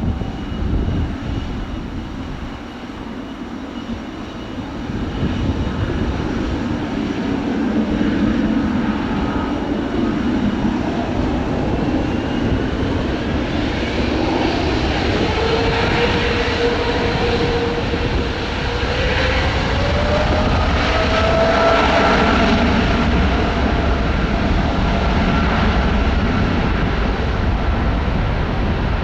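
Boeing 777-200F freighter's twin GE90 turbofans at take-off thrust: a steady jet roar that builds louder, with a whine that rises in pitch around the middle.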